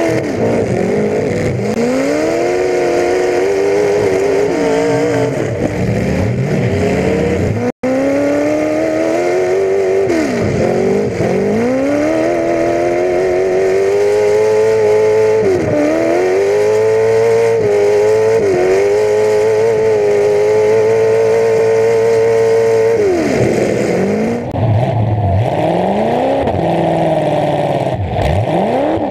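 Demolition derby car's V8 engine running through open upright header pipes, revving up and dropping back again and again as the car accelerates, shifts and backs around. The sound cuts out for an instant about 8 seconds in.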